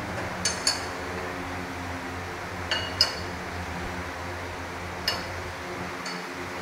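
Light metallic clinks of tools and metal parts being handled, about six of them spread out in loose pairs, over a steady low hum.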